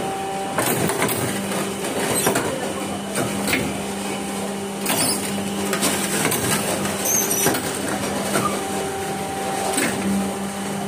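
Hydraulic interlocking-brick press machine running through a pressing cycle: a steady hum from its pump motor with a series of clunks and knocks from the press and mould every second or two.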